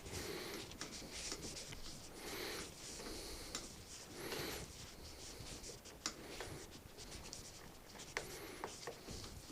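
Faint rubbing and scraping from hands working cables and plastic cable ties on a motorcycle's wiring, in soft swishes every couple of seconds, with a few sharp clicks.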